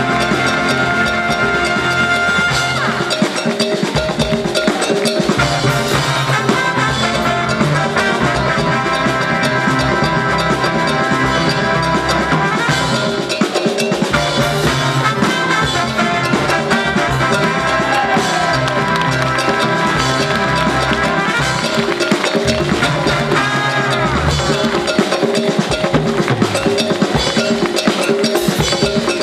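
Live Cuban band playing, with a drum kit and percussion keeping the beat under sustained melody lines on keyboards or horns.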